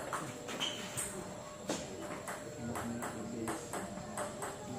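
Table tennis ball clicking back and forth in a rally: sharp paddle hits and bounces on the table, about two clicks a second.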